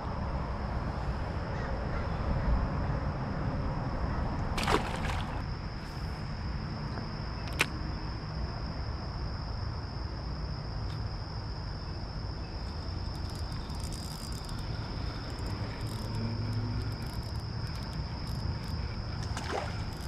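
Insects droning steadily in one high, thin unbroken note, over a low wind rumble on the microphone. A brief swish comes about five seconds in and a single sharp click a few seconds later.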